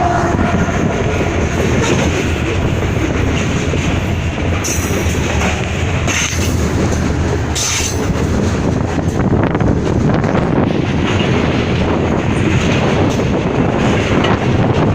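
Freight train rolling past close by, its wheels clattering steadily on the rails. A couple of brief high wheel squeals come a few seconds in. The locomotive horn's last note trails off at the very start.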